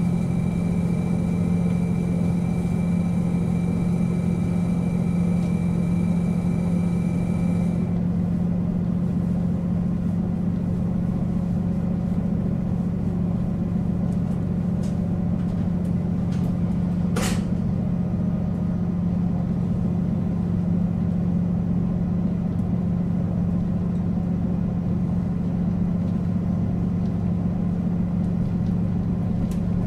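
Diesel engine of a JR Hokkaido KiHa 40 railcar idling steadily while the car stands at the platform. A high whine cuts off about eight seconds in, and a brief sharp sound comes about seventeen seconds in.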